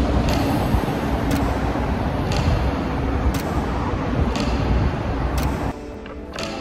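Road traffic: a steady low rumble of passing cars, with a sharp tick about once a second running through it. Near the end the traffic rumble cuts off abruptly, leaving a quieter background with the ticks still going.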